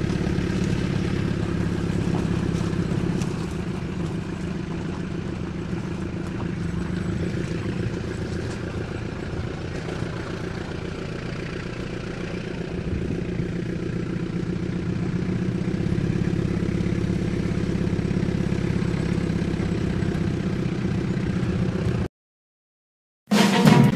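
Willys Jeep's four-cylinder engine running steadily as the Jeep drives slowly, heard from on board the open vehicle. It cuts off suddenly about two seconds before the end, and music with drums follows.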